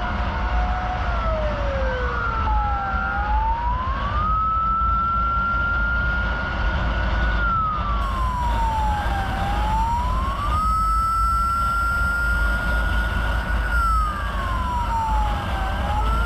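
Emergency vehicle siren wailing in slow rises and falls, each cycle about five to six seconds, over a steady low rumble. A second siren overlaps with it for the first couple of seconds.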